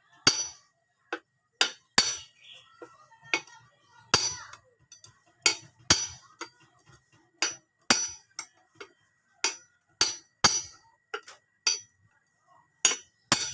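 Hammer blows on metal parts of a Honda Revo FI motorcycle engine being dismantled: about twenty sharp, ringing strikes at an uneven pace, one or two a second.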